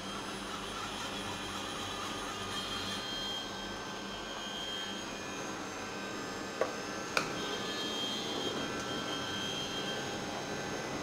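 CNC milling machine running with a steady mechanical hum and a few steady whining tones, with two sharp clicks a little past halfway.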